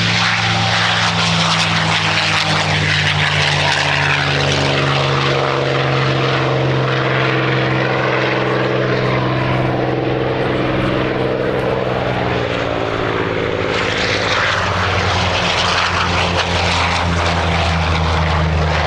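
Piston engines of WWII propeller warbirds running at high power as they take off: a loud, steady drone of several engine tones that slowly shift in pitch. About fourteen seconds in, a deeper engine note grows stronger.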